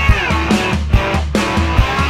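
Intro music: guitar-led background track over a steady drum beat, with a falling pitch slide near the start.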